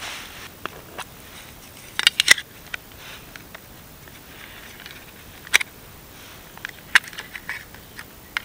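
A small plastic container handled and opened by hand: sharp plastic clicks, a quick cluster of three or four about two seconds in and single ones later, with light rustling between them.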